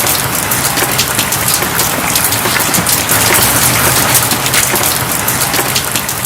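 Steady heavy rain, a dense patter of many small drops with crackles throughout.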